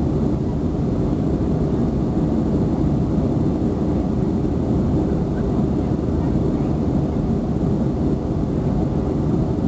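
Steady cabin noise inside a Boeing 737 climbing out after takeoff: an even, low roar of the engines and the air rushing past the fuselage.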